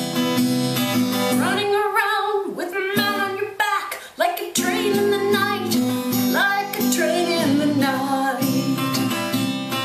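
A woman singing a folk-style song to her own strummed acoustic guitar, with a short break in the strumming about four seconds in.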